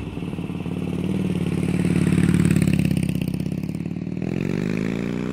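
Harley-Davidson V-twin motorcycle engine running with a fast, even pulse. The revs swell and ease off, then climb again near the end.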